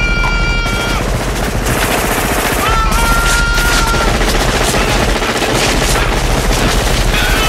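Movie-soundtrack automatic gunfire, continuous and dense: a Gatling-type minigun and assault rifles firing nonstop. A held high tone rises over the shooting twice.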